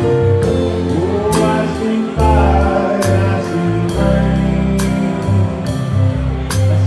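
A live big band playing a slow song: saxophones and brass carry the melody over bass and a drum kit, with a cymbal stroke about every one and a half to two seconds.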